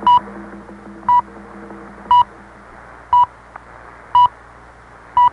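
Six short beeps at one pitch, one a second, from a shortwave broadcast time signal (Radio Netherlands) heard over a steady background hiss of shortwave reception.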